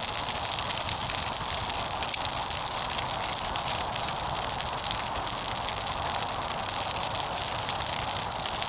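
Wood fire in a small wood-burning camp stove with burgers cooking on its grill, giving a steady hiss with a few faint crackles.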